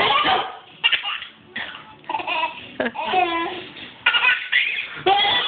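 A small child laughing in a string of short bursts.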